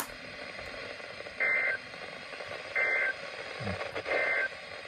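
Three short bursts of Emergency Alert System digital data from NOAA Weather Radio, each a harsh two-tone warble about a third of a second long, coming about 1.3 s apart over a steady radio hiss. Three short bursts like these are the end-of-message code that marks the end of the alert.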